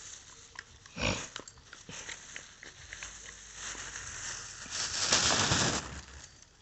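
A dog close to the microphone, with a sharp knock about a second in and a louder rough, noisy stretch around five seconds in.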